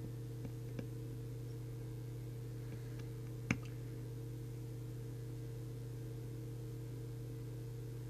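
A few light clicks from a trimming tool working the 4-watt transmit power trimmer on a Midland M-Mini CB radio's circuit board, one sharper click about three and a half seconds in, over a steady low hum.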